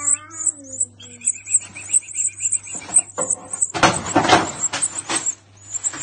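European goldfinch nestlings begging: rapid high-pitched cheeping, several calls a second, running on almost without break. A brief falling voice-like tone sounds in the first second, and a burst of handling and rustling noise comes about four seconds in.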